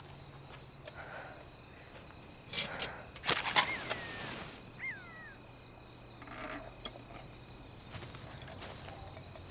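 Layered film sound effects of a rural outdoor scene: scattered clicks and knocks, a loud rushing noise about three seconds in, and two short chirps that fall in pitch, over a low steady hum.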